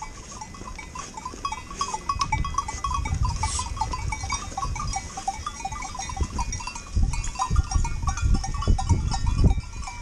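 A flock of sheep passing close by on a gravel track, many small bells clinking without pause, with low thumps and rumble from the moving flock that grow louder about seven seconds in.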